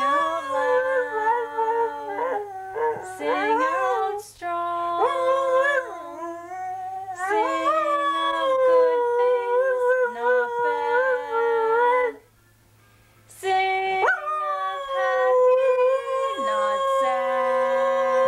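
An Australian shepherd–border collie cross dog howling in long, wavering howls, with a person singing lower held notes along with him. The howling breaks off about twelve seconds in and starts again a little over a second later with a sharp rising swoop.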